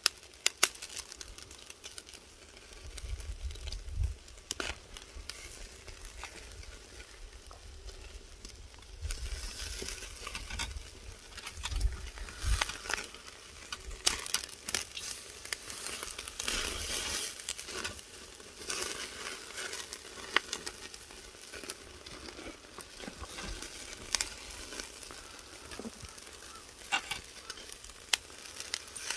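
Pork neck sizzling over oak charcoal on a grill, with scattered sharp pops and crackles.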